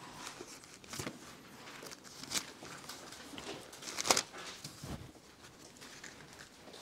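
Pages of a Bible being turned at a lectern: a few soft paper rustles and light handling noises spaced a second or more apart, the loudest about four seconds in, with a brief low thump just after it.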